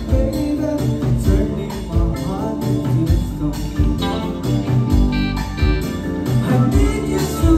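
A live four-piece band playing: electric guitar, electric bass, keyboard and drum kit, over a steady drum beat.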